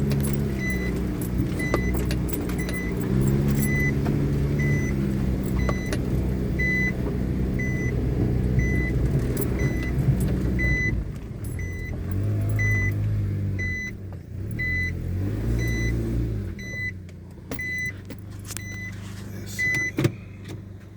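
Car engine running, its pitch rising and falling with the throttle, then dropping away about three quarters of the way through. Throughout, the car's electronic warning chime beeps steadily, about one and a half beeps a second.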